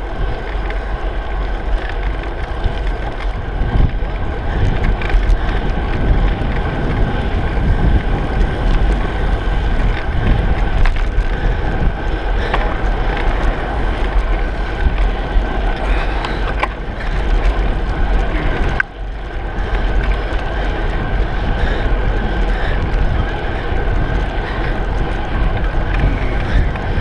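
Wind buffeting the microphone of a handlebar-mounted camera on a moving bicycle: a steady, loud rumble mixed with rolling road noise. It drops out briefly about two-thirds of the way through.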